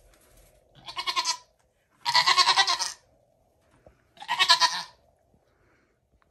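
Nigerian Dwarf goat bleating three times, loud, high, quavering calls, the middle one the longest.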